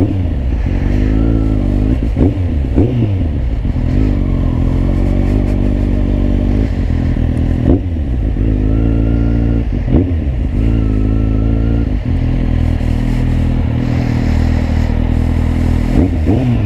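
Kawasaki Z800 inline-four with an Akrapovic exhaust running at low speed, its revs rising and falling several times between steadier stretches.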